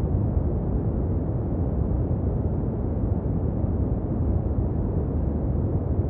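Steady, deep rumbling noise with no distinct events, strongest in the low end and with almost nothing in the high end.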